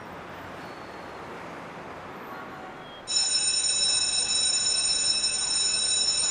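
Quiet steady background noise, then about three seconds in a school's electric bell starts ringing, a loud, steady, high-pitched ring.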